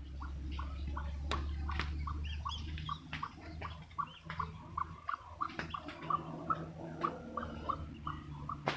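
Newly hatched ducklings peeping in a steady run of short calls, about three a second, with a few sharp clicks.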